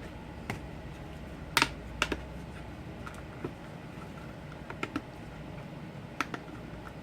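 Small tools and parts being handled on a work surface: a scattering of light, irregular clicks and taps, the loudest about one and a half seconds in, several coming in quick pairs.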